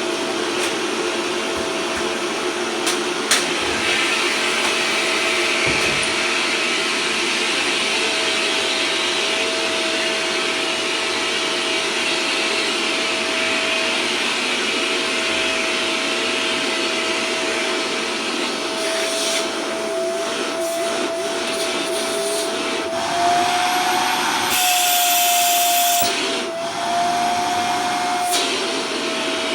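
Vacuum cleaner running steadily, its motor whine holding one pitch. In the second half the whine wavers and climbs a little, and about 24 to 26 seconds in a louder, hissier rush of air sounds for about a second and a half.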